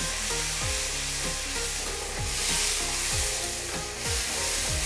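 Wet masala paste of onion, tomato and ground spices frying in oil in a kadhai, sizzling steadily while a spatula stirs it. Background music with a low, regular beat plays underneath.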